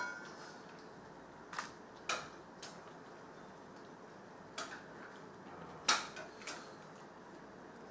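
Perforated metal ladle knocking and scraping against a metal pot while a meat curry is stirred: a scattering of short, sharp clicks and taps at irregular intervals.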